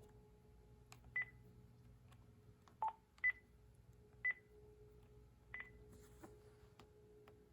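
Key beeps from a Panasonic KX-TG5432M cordless phone handset as its buttons are pressed to scroll through the menu: five short beeps, four high-pitched and one lower, with faint button clicks between them.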